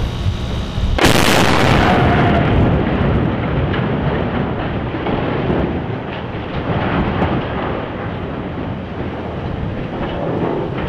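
Demolition blast of the precision-placed explosive charges cutting the Key Bridge steel truss on the MV Dali: a sudden loud boom about a second in, then a long rolling rumble that slowly fades. Wind buffets the microphone before the boom.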